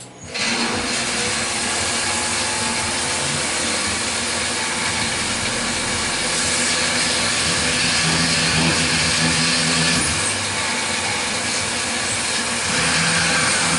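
CNC milling machine cutting a hole in a metal block under flood coolant: the coolant spray hisses and the spindle runs, starting suddenly just after the start and then holding steady.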